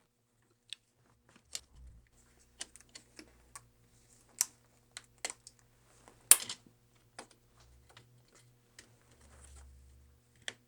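Small hand tools clicking and tapping irregularly against the parts of an opened MacBook Pro as a stubborn speaker is worked free, with one sharper click about six seconds in.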